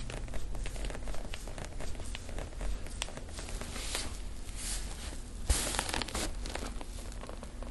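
Hands massaging a neck: fingers rubbing and rustling through hair and over skin, with many small crackles and a sharper click about five and a half seconds in, followed by a brief burst of rustling.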